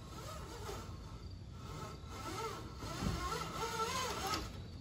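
Jib of a 1965 O'Day Osprey daysailer being hoisted by hand: vintage sailcloth rustling as the halyard is hauled, with a wavering squeak from the rig in the second half as the sail goes up.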